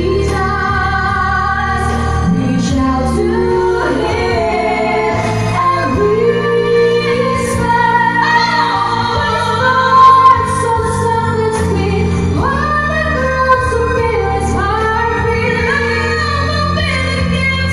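Two women singing a pop ballad duet live into handheld microphones over instrumental accompaniment with a steady bass and light percussion. A loud held note comes about ten seconds in.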